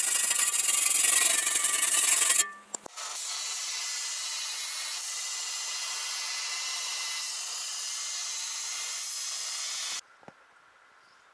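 A dull shovel's edge being sharpened: a loud, steady, harsh rasp of metal being worn down, lasting about two and a half seconds. It cuts off abruptly, and a quieter steady hiss follows until it too stops suddenly near the end.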